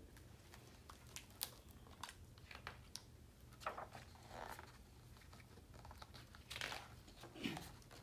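Faint paper rustling and light ticks as a picture book is opened and its pages are turned, with slightly longer rustles about four seconds in and again near seven seconds.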